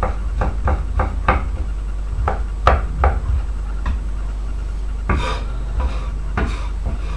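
Chef's knife chopping garlic cloves on a bamboo cutting board: irregular knocks of the blade striking the wood, two or three a second, with a longer, noisier stroke about five seconds in.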